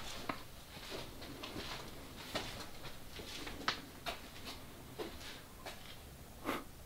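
Quiet enclosed space with scattered faint clicks and taps at irregular intervals, a few sharper ones standing out.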